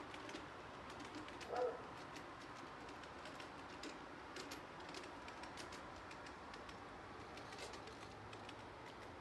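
Dove cooing faintly, with one louder coo about a second and a half in, over scattered faint ticks.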